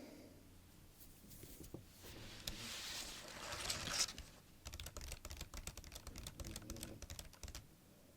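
Laptop keyboard keys being tapped: after a soft hiss, a quick, dense run of key clicks starts about halfway through and stops shortly before the end.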